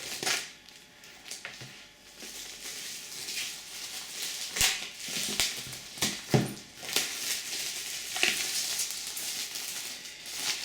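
Packaging being handled and opened: irregular rustling and crinkling with several sharper crackles, as the cardboard and plastic of a Blu-ray box set are worked open.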